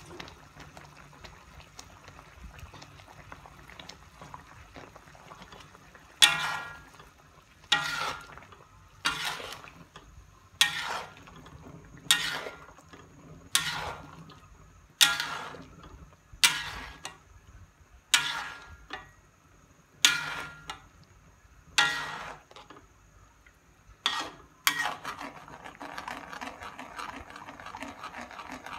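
Metal ladle stirring thick curry gravy in a wide metal pan, scraping and knocking against the pan about once every second and a half, each stroke ringing briefly.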